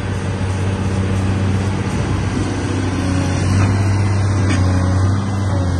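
Cat 330DL track excavator's C9 six-cylinder diesel running steadily under load as the upper structure swings round, a constant low engine drone that grows slightly louder in the middle.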